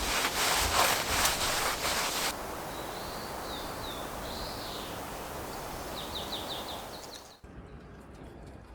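Outdoor ambience: a couple of seconds of rustling and crackling, then a steady hiss with a few short bird calls and a quick run of chirps. About seven seconds in, the sound drops suddenly to a quieter background.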